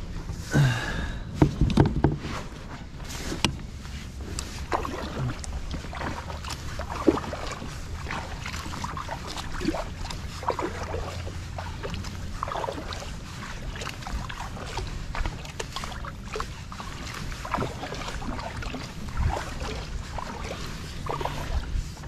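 Water splashing and lapping around a fishing kayak at sea, with scattered small knocks and drips over a low rumble of wind on the microphone; a few louder splashes or knocks come about a second or two in.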